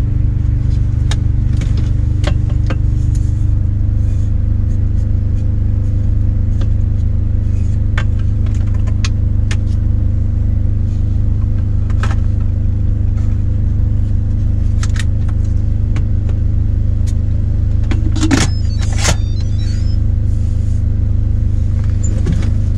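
Steady low drone of a diesel engine idling, heard inside a semi truck's cab. Scattered light clicks and knocks of kitchen work with a cutting board and pot lid sit on top, with a louder clatter toward the end.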